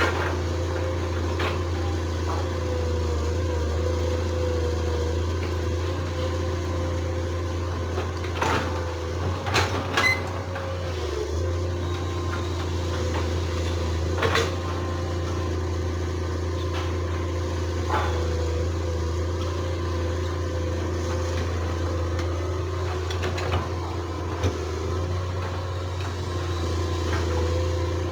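Excavator's diesel engine running steadily with a low drone, with a handful of short metallic clanks from the bucket and boom as it works.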